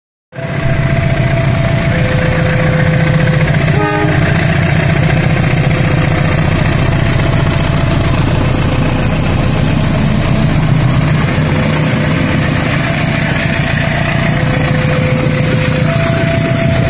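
KAI CC 201 diesel-electric locomotive (a GE U18C) running past with a steady low engine rumble, under a level-crossing warning signal sounding two alternating tones, each held for a second or two.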